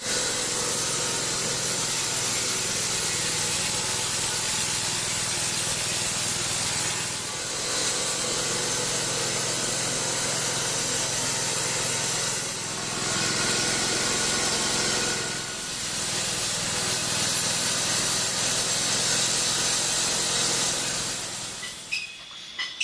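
Sawmill bandsaw cutting through coconut palm wood, a steady loud sawing noise that dips briefly three times and dies down near the end.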